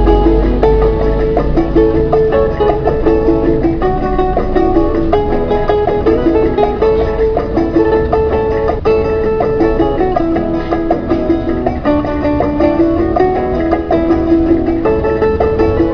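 Instrumental background music carried by plucked string instruments, playing a steady run of notes.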